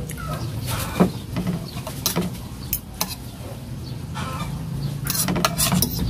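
Metal spoon and fork clinking and scraping against a ceramic plate of rice, with sharp clinks about a second apart and a quick cluster near the end. Chickens cluck in the background.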